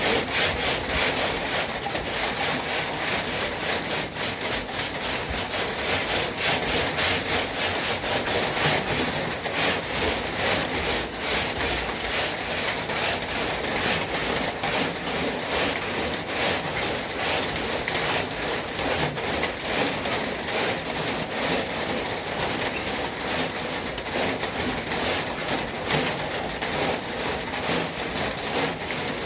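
Sandpaper scratching over the surface of a truck toolbox in quick, repeated back-and-forth strokes.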